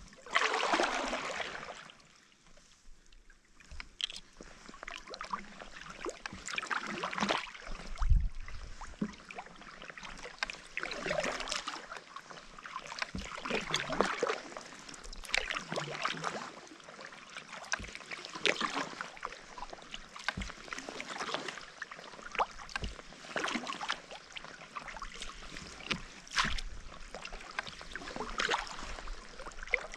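Kayak paddle blades dipping into calm sea water at an unhurried pace, a splash and trickle of drips every two or three seconds.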